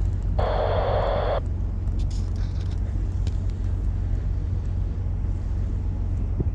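Steady low hum of a bulk carrier's machinery, heard from high on the ship, with a higher-pitched noise lasting about a second cutting in about half a second in.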